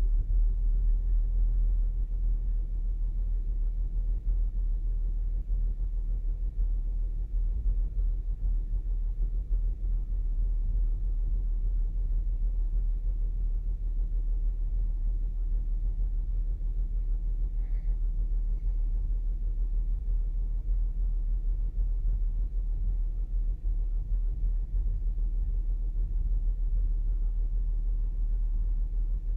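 2008 Saturn Outlook's 3.6-litre V6 idling: a steady, low rumble.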